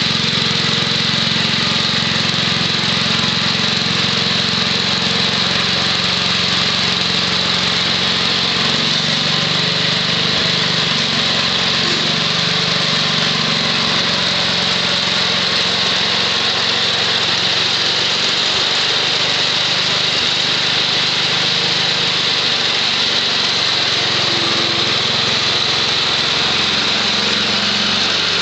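The 6 HP Tecumseh H-60 single-cylinder engine of a 1967 Wheel Horse Lawn Ranger garden tractor running steadily under load, powering a 32-inch STR-324 snowthrower through snow. Near the end the tractor comes right up past the microphone.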